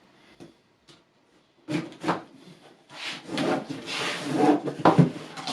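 Irregular rubbing and knocking of objects being handled, starting after a quiet second or so with a few faint clicks.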